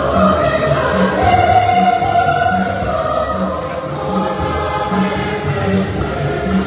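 A choir singing a gospel hymn over a steady low beat.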